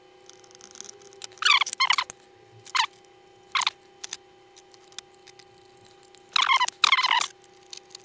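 Small screws squeaking as a screwdriver drives them through a metal laptop drive caddy into a 2.5-inch SSD: several short, shrill squeaks with pauses between, a cluster about a second and a half in and another about six seconds in.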